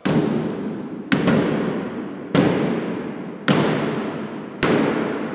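A mallet striking the metal V-band clamp at a Minuteman III missile stage joint: five sharp blows about one a second, the second one doubled. Each blow rings on and dies away over about a second. This is typical of tapping the band around to seat it while the clamp is tightened.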